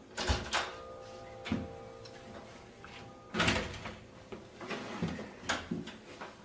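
A house door being opened and closed, with several knocks and bumps. A ringing tone follows the first knocks for about two seconds.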